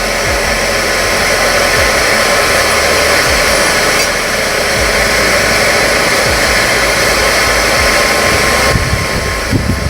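Forge running with a loud, steady rushing roar. Near the end the roar changes slightly and a few low knocks come through.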